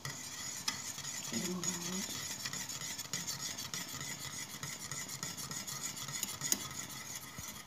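A spoon stirring and scraping through a pot of boiling pandan jelly mixture, with many small clicks against the metal pot over a steady hiss.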